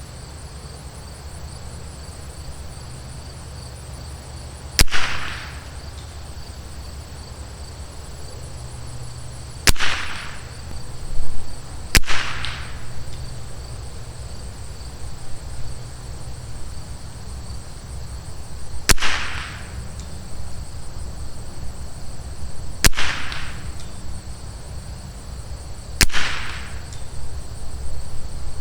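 Rim-X bolt-action .22 LR rifle with a Douglas barrel firing six single shots several seconds apart, heard from down range at the target, each a sharp crack with a short fading tail.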